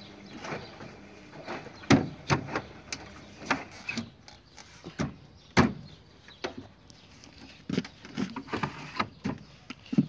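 Knocks and clicks of a washing machine's top panel being slid into place and pressed down onto the cabinet: a series of irregular sharp knocks, the loudest about two seconds in and again past five seconds.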